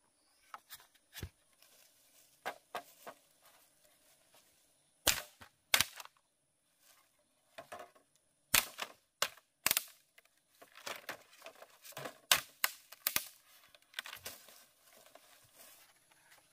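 A series of sharp, irregular knocks and cracks, loudest in the middle stretch, with quieter clicks in between.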